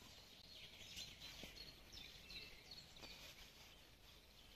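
Near silence, with a few faint bird chirps and the soft crumbling of hands working damp groundbait in a bucket.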